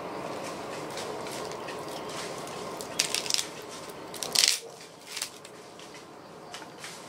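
Dry wood splinters and shavings crunching and snapping in the hands as kindling is laid, with a few sharp crackling crunches about three and four and a half seconds in, over a steady background hiss.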